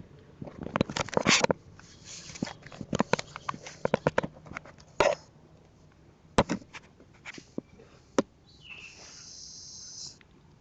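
Clattering handling noises and a series of sharp clicks from a spring-powered airsoft shotgun being worked and readied to shoot. A brief hiss comes near the end.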